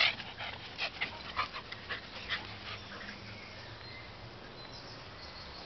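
A dog breathing and snuffling close by: a quick, irregular run of short sharp breaths for the first two and a half seconds or so, then it goes quieter.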